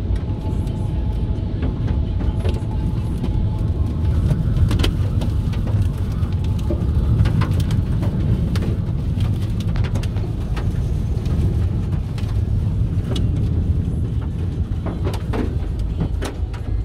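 Inside a vehicle's cabin in a severe windstorm: a steady low rumble of wind buffeting and road noise, with many sharp taps and clicks of rain and small debris striking the windscreen and body.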